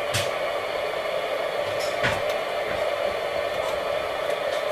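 Sony ICF-2001D receiver's speaker giving a steady AM hiss and interference noise with no clear station, which the repairer puts down to too much other equipment switched on nearby. Two short clicks come from the set's controls, one just after the start and one about two seconds in.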